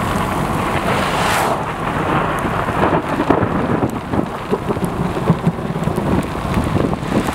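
Rain falling hard and thunder rumbling from a severe thunderstorm, with a louder rush of noise about a second in.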